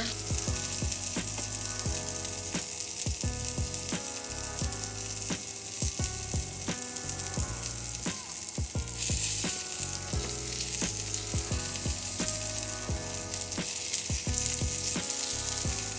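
Salmon strips sizzling as they fry in oil in a pan, with tongs clicking now and then against the pan. A background tune plays underneath.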